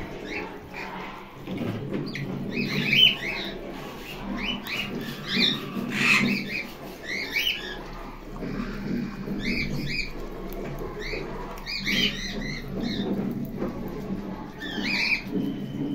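Parrots gnawing at walnut shells, a low scraping and crunching, with short high chirps coming in clusters every second or two.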